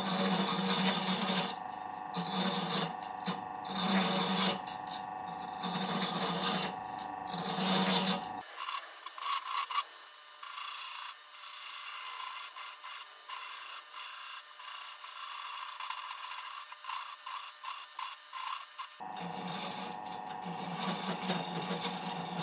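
Drill press running, its spindle turning a plywood pulley while a chisel held against it like a lathe tool scrapes and cuts the spinning plywood in repeated passes. From about eight seconds in until shortly before the end, the low, full sound drops away and leaves a thinner, high scraping.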